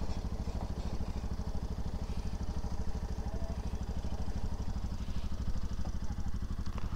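Bajaj Pulsar NS200's single-cylinder engine running steadily, its firing pulses even and rapid.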